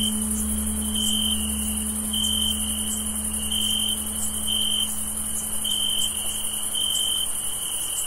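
Crickets chirping, one chirp about every second, over a steady high-pitched insect chorus. Under them, the low hum of a tolled bell fades away, its deepest part dying out a little past halfway.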